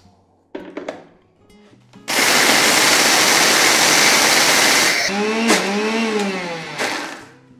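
Electric mixer-grinder whirring with a small steel jar of toor dal chutney, run at full speed for about three seconds. It then drops to a lower hum that rises and falls in pitch before stopping near the end.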